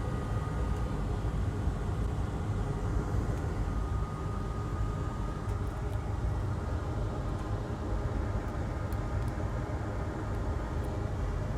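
Steady low background hum of a workshop, with a faint thin steady tone through the first half and a few faint light clicks, as small flex-cable connectors are pressed onto the board.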